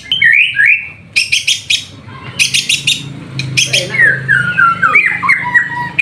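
White-rumped shama (murai batu) singing: clear whistled phrases that glide up and down, broken by runs of sharp clicking notes. About four seconds in comes a falling series of whistles, then short repeated notes.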